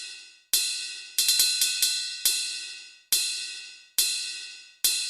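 Sampled cymbal strikes from a keyboard app's dangdut drum set, each ringing out and decaying: single hits about every 0.8 s, with a quick run of about five hits a second in.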